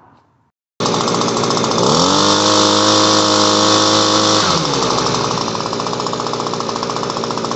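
Echo PB-250LN handheld leaf blower's two-stroke engine running on a newly fitted carburetor. It comes in abruptly already running, revs up about a second later, holds high for a couple of seconds, then drops back to a steady idle.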